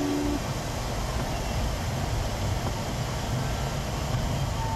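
Steady low rumble and hiss of a car idling with its window open to the outside air. A single steady hum stops just after the start.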